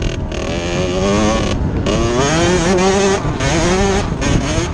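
Dirt bike engine revving hard under the rider. Its pitch climbs, then drops back twice as it shifts up through the gears.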